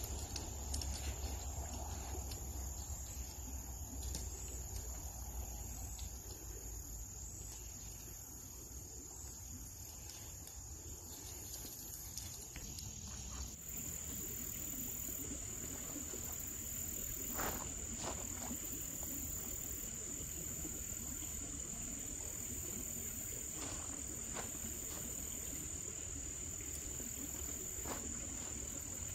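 Steady high-pitched chorus of crickets, louder about halfway through. A few faint clicks come from tent poles and fabric being handled.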